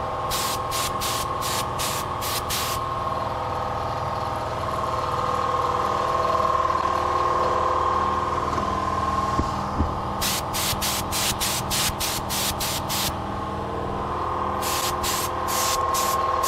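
Spray-painting rig running steadily: a compressor's constant hum, with a spray gun hissing in quick, evenly spaced strokes in three spells, near the start, in the second half and again near the end.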